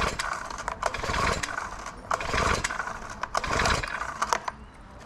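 Recoil starter of a Honda GX35 four-stroke engine on a lawn edger being pulled about four times, roughly one pull every second, each pull a whirring rush with clicks. The engine does not fire between pulls; its original Walbro carburettor needed a rebuild.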